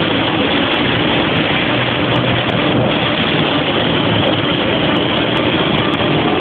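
Jet car's turbine engine turning over at low power during a start attempt that does not quite catch, heard as a loud, even rush with a faint hum.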